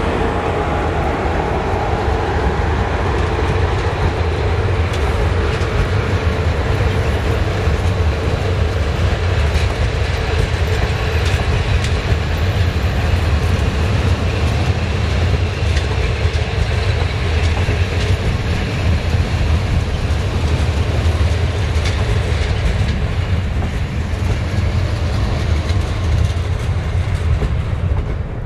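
Double-deck passenger coaches rolling slowly past on a 10–15 km/h speed restriction, with a steady low rumble and occasional wheel clacks. The sound drops away at the very end as the last coach passes.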